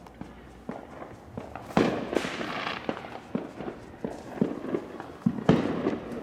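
Fireworks and firecrackers going off: a string of sharp pops, with two louder bangs about two seconds in and near the end, each followed by crackling.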